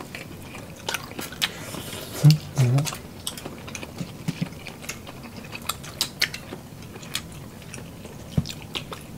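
Close-miked eating sounds: people chewing and smacking while their hands pick through boiled seafood, giving scattered sharp wet clicks. A brief murmur of a voice comes about two and a half seconds in.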